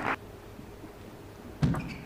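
Quiet hall ambience, then about one and a half seconds in a single sharp knock of a table tennis ball.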